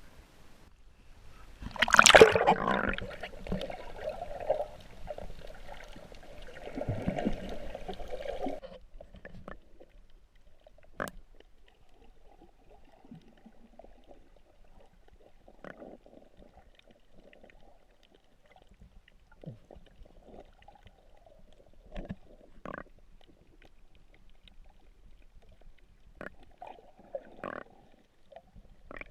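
Water splashing and sloshing, loudest about two seconds in and dying away after about eight seconds, followed by a few faint knocks.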